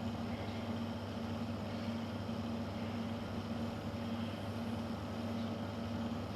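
Steady fan hum with a low electrical drone and a faint pulsing tone, unchanging throughout.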